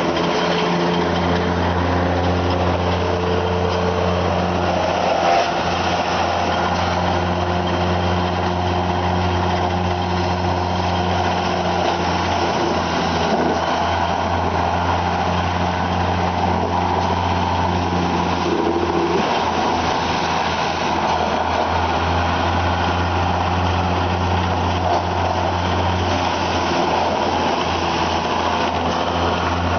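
Wood chipper's engine running steadily, a constant low hum.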